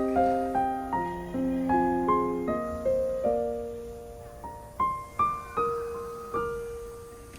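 Background piano music: a slow melody of single struck notes, each fading away, thinning out and growing quieter toward the end.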